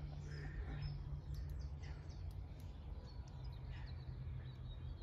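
Birds chirping faintly, short scattered calls over a low steady rumble.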